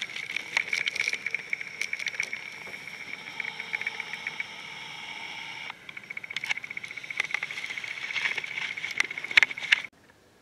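Insects chirping in a fast, steady pulse, with scattered clicks and rustles over it; the sound cuts off abruptly near the end.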